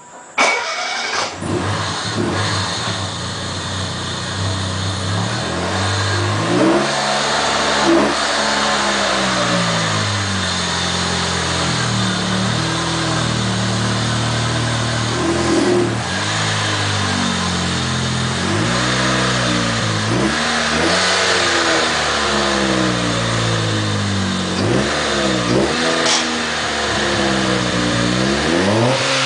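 Chevrolet Corsa engine running loud through a JK 'turbinho' aftermarket exhaust, revved again and again. The pitch climbs and drops back repeatedly over a steady idle, with the revs coming in quicker blips toward the end.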